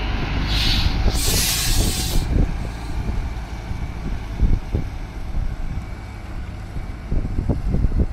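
Semi-truck pulling away: a short burst of compressed air hissing, then a longer, louder one about a second in, from the air brakes releasing, over the diesel engine's low rumble as it drives off.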